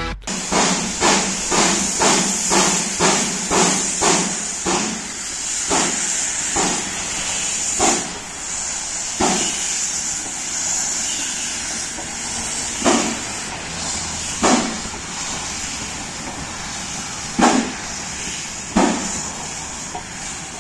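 Gr-332, a 1951 narrow-gauge steam locomotive under steam: a steady hiss of escaping steam with sharp puffs about two a second for the first few seconds, then spaced further apart.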